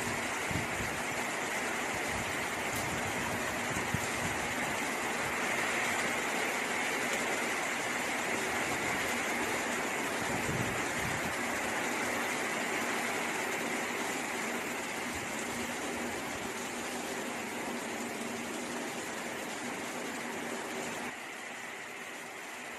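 Heavy cyclone rain pouring down in a steady hiss, with wind gusts now and then rumbling on the microphone. The rain eases a little near the end.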